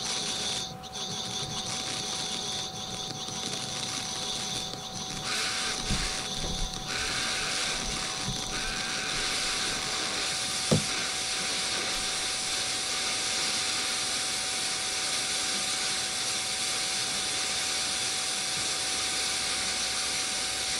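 Steady electronic hiss with a constant tone underneath, filling in over the first several seconds and then holding steady, with a single click about eleven seconds in. It is the noise of a real-time voice-effects chain overloaded with stacked echoes, which the speaker takes for having broken it.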